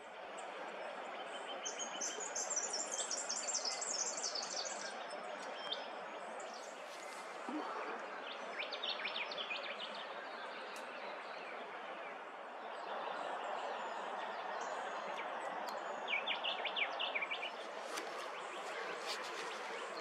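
Outdoor bush ambience: a steady hiss of background noise with wild birds calling over it. There is a quick run of high chirps about two seconds in, another burst of calls around eight seconds, and a third near sixteen seconds.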